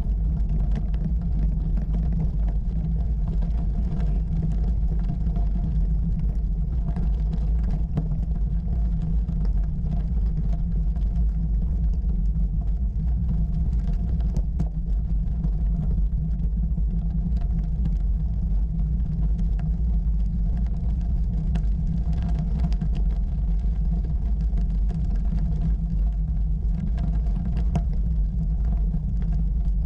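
Bicycle rolling up a loose gravel track: a steady low rumble of tyre and frame vibration on the camera, with scattered small clicks of stones under the tyres.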